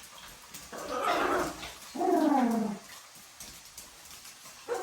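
Macaw calling twice: a short harsh squawk about a second in, then a longer pitched call that slides in pitch around two seconds in.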